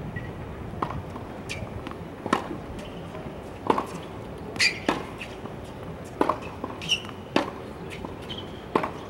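Tennis balls being hit back and forth by rackets and bouncing on a hard court, with a sharp knock about every second.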